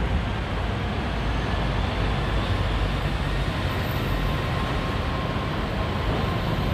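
MRT Yellow Line rubber-tyred monorail train running, heard from inside the car: a steady rumble with a faint whine in the second half.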